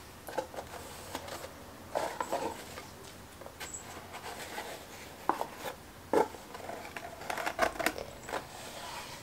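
Quiet handling sounds of small objects: scattered light clicks and taps with soft rustling. The sharpest clicks come about five and six seconds in.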